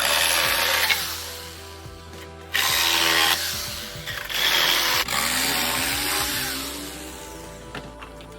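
A power tool run in three short bursts: one at the start, one about two and a half seconds in, and one about five seconds in. Each burst starts suddenly and fades away.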